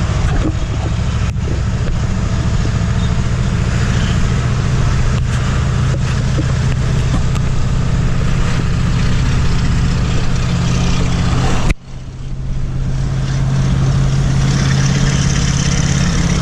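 Ford Super Duty's 7.3 L Power Stroke turbo-diesel V8 running steadily, with a sudden short break about twelve seconds in. The engine is low on power and losing oil pressure, which the owner puts down to a bad injector.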